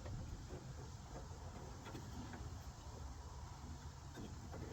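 Faint handling of door-latch parts inside a pickup's door panel: a few light ticks over low steady background rumble, as a latch rod is worked into its hole.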